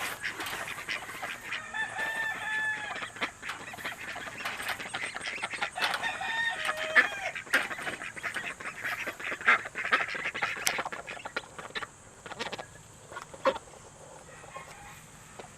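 A flock of ducks quacking and clamouring as they are let out of their pen. Two longer drawn-out calls come about two and six seconds in, and the racket dies down over the last few seconds.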